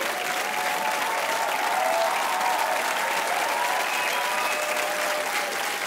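A studio audience applauding steadily, with some cheering voices over the clapping.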